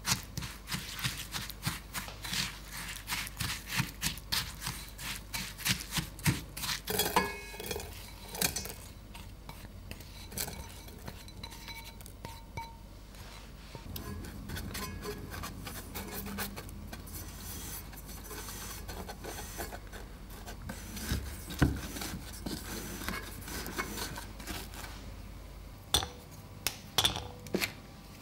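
A spatula scraping against a ceramic bowl in many quick strokes while biscuit crumbs are stirred into melted butter, followed by softer scraping and a couple of sharp knocks as the buttery crumb base is pressed into a metal cake pan with a spoon. Near the end, a few light clinks.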